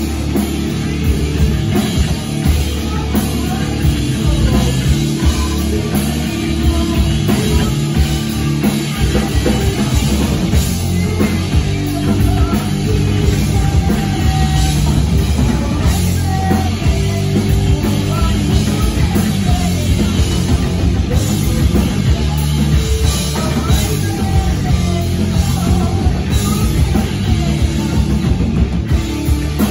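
Live rock band playing loudly: distorted electric guitar, electric bass and a drum kit, with a singer's voice over them.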